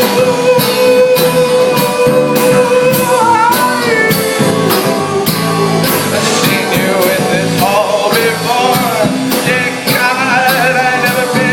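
Rock song with a steady drum beat under guitar and long held sung notes.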